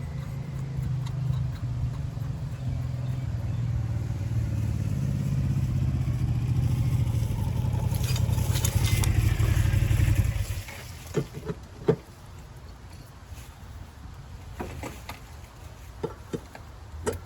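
A motor hums steadily at a low pitch, growing louder, then cuts off abruptly about ten seconds in. A few sharp knocks and clicks follow.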